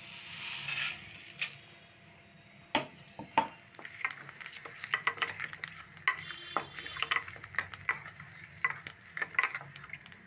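Whole spices (cumin, coriander, fennel, mustard and fenugreek seeds with dried red chillies) are tipped from a plate into a dry stainless steel kadai with a brief hiss. From about three seconds in they are stirred with a wooden spatula, the seeds rattling and scraping against the steel in a run of short clicks as they dry-roast.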